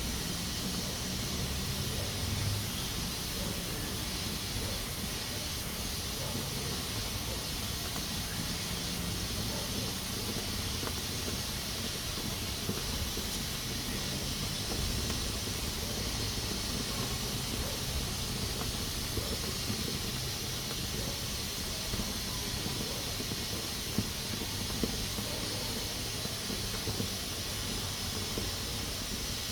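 Pressure cooker venting steam through its valve: a steady, high hiss, the sign that it is up to pressure and cooking.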